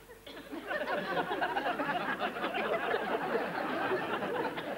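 A sitcom audience laughing, many voices at once, swelling up about a second in and carrying on without a break.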